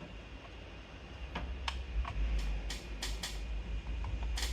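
Scattered sharp plastic clicks and taps, about seven of them, from power-supply cable connectors being handled and plugged into a PSU tester, over a low steady hum.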